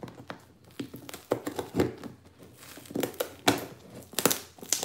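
A dull knife stabbing and sawing through thick layers of plastic packing tape on a box, the tape giving irregular crackles and rips in clusters, the loudest near the end.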